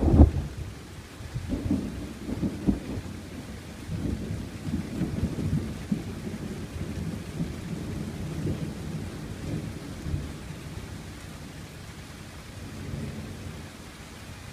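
Thunder: a loud clap right at the start, then a long rolling rumble that dies away over about ten seconds, with a weaker swell near the end. Light rain patters steadily on a gazebo roof throughout.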